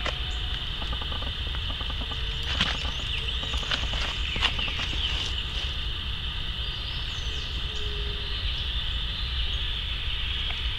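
Steady chirring of insects over a low rumble. Water splashes sharply about two and a half and four and a half seconds in as a hooked pacu thrashes at the bank and is landed by hand.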